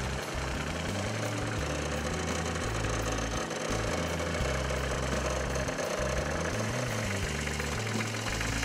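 New Holland TC26 compact tractor's three-cylinder diesel engine running steadily at idle.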